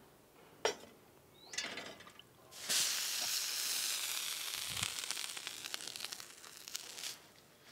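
Oil and liquid sizzling on a hot dosa tawa. The sizzle starts suddenly about two and a half seconds in, holds for about four seconds, then thins out. A sharp click comes under a second in, and there are a couple of short chirps.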